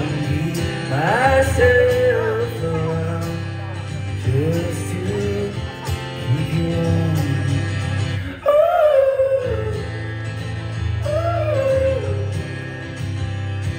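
Indie-folk band playing live, guitar over a steady bass, with sung vocal lines gliding above. A little past halfway the bass drops out for about a second while a voice rises and holds a high note, then the band comes back in.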